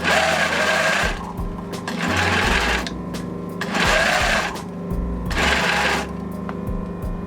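Industrial sewing machine stitching a zigzag over fishing line in four short runs of about a second each, with a steady hum underneath between the runs.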